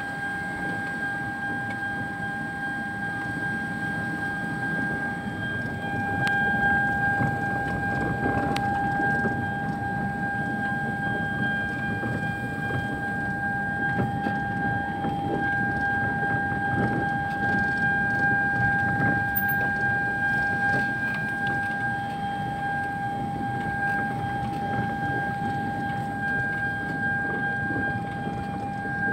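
Car driving slowly on a rough dirt track, heard from inside the cabin: a steady low rumble of engine and tyres on the unpaved surface. A steady high-pitched tone sits over it throughout.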